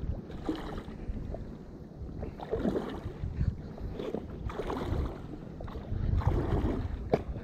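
Water sloshing against an inflatable float tube, with scattered knocks and rustles from handling a spinning reel and landing net.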